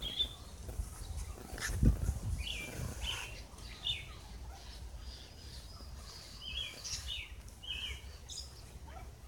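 Small birds chirping: many short, repeated, downward-sliding chirps, over a low rumble that swells about two seconds in.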